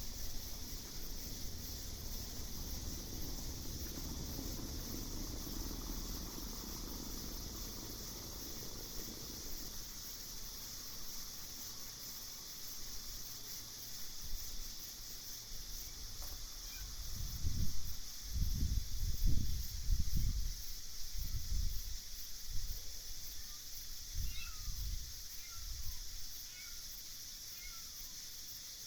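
Night insect chorus, a steady high-pitched trilling that never lets up. A few low rumbles come and go about two-thirds through, and several short chirps sound near the end.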